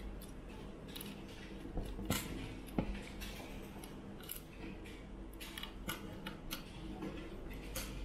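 Small screwdriver turning M2.5 screws into an acrylic panel and circuit board: irregular light clicks and taps of metal on plastic, with a few sharper clicks about two and three seconds in, over a faint steady hum.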